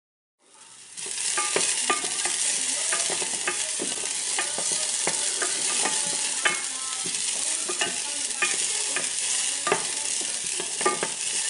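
Chopped green onion, garlic, dried chilies and orange zest sizzling in hot vegetable oil in a small saucepan, fading in about half a second in. A utensil stirring them clicks and scrapes against the pan many times.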